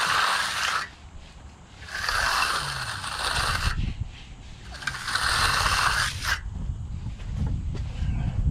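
Steel hand trowel scraping across a fresh concrete floor in three long strokes, each about a second long, on the last finishing pass.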